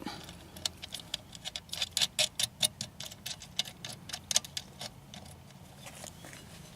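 Quick run of small metallic ticks and clicks as a retaining nut is threaded by hand onto the body of a mailbox cam lock, over a lock washer. The clicks are densest in the first few seconds and thin out near the end.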